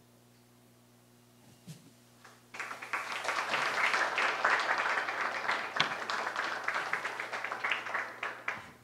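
Audience applauding, starting about two and a half seconds in and dying away near the end.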